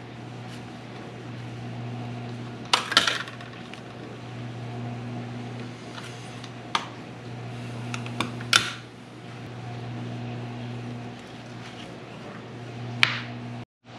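Kitchen knife and spoon clicking and knocking against avocados and a plastic cutting board as the avocados are halved, pitted and scooped: a handful of sharp, separate clicks over a steady low hum.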